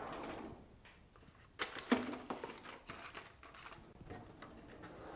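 A run of small, sharp clicks and taps, densest from about a second and a half in to about four seconds in, from small objects being handled on a work surface.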